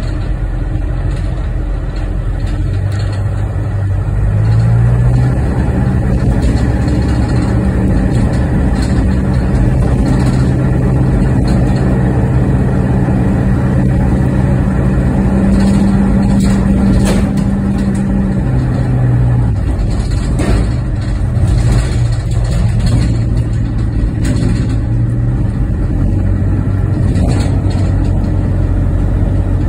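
A car driving slowly along a street: a steady low engine hum over road noise. The hum steps up in pitch about four seconds in and drops back around twenty seconds in, as the car speeds up and slows.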